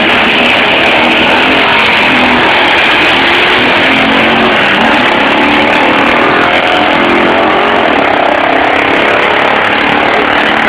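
Classic motorcycle engine at full throttle, launching from the start line and accelerating hard up the hill; loud and steady.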